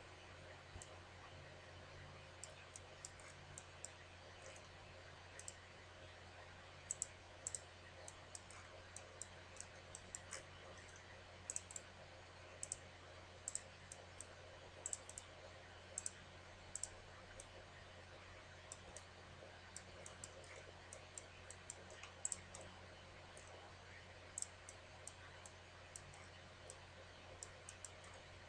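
Computer mouse clicking: irregular sharp clicks, often in quick pairs, over a faint steady low hum.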